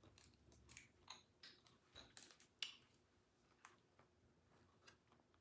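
Faint, scattered clicks and light taps of handling at a dinner table, among them a small plastic dipping-sauce cup being handled; the sharpest click comes about two and a half seconds in.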